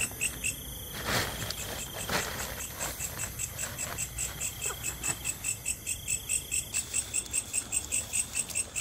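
Crickets chirping in a steady, even pulse of about five chirps a second. A plastic sack rustles briefly about one and two seconds in.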